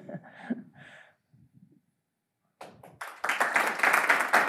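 Audience applauding, beginning about three seconds in after a brief quiet, a dense run of many hands clapping at once.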